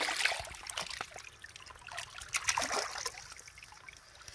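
Scattered small clicks and scrapes of a knife working against oyster shells clustered on a stick, over a soft trickle-like hiss; the clicks are busiest in the first second.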